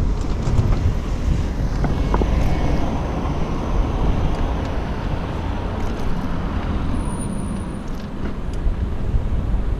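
Steady wind rumble on the GoPro's microphone while cycling, mixed with road traffic and cars going by.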